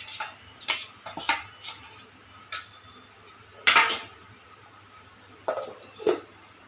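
A steel spoon scraping and clinking against a stainless-steel pan and a steel mixer-grinder jar as a cooked tomato-onion mixture is scraped out, a handful of separate clinks with the loudest clank about four seconds in.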